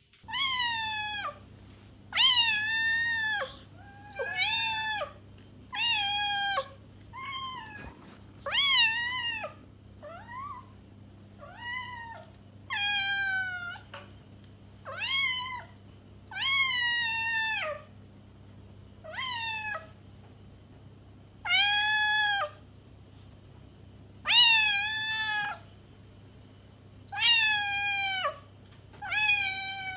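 Domestic cat meowing over and over, one drawn-out meow every second or two, each rising and then falling in pitch, over a faint steady low hum.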